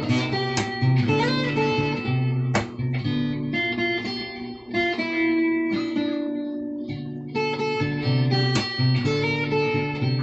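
Acoustic-electric guitar played through its newly fitted Prener PM-5 band preamp pickup as a test of the pickup. Picked melody notes and chords ring over a bass line, with a bent note about a second in.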